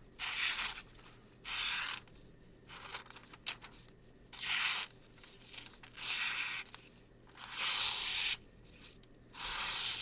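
Lake Champlain Barlow slip-joint pocket knife slicing through magazine paper in a paper-cutting test of its factory edge: six separate slicing strokes, each a short papery rip, about one every second and a half.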